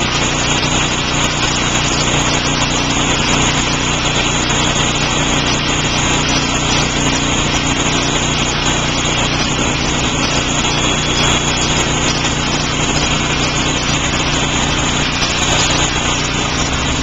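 Two handheld rotary polishing tools running steadily against wet window glass, grinding away acid-etched graffiti. The machine noise is loud and unbroken.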